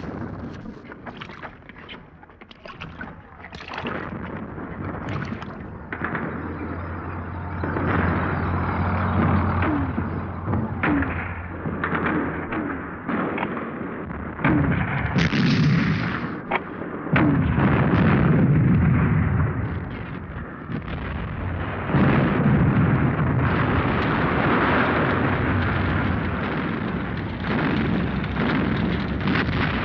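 Battle sounds: repeated gunshots and artillery explosions, with heavy rumbling blasts that grow denser through the middle and later part. A low steady drone runs under the first two-thirds.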